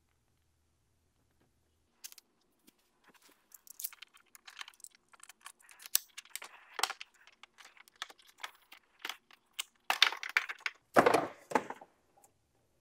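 Clicks, scrapes and plastic rattles of pliers on a coolant hose and its spring clip, starting about two seconds in. A louder rustling scrape follows near the end as the hard plastic coolant line is worked free.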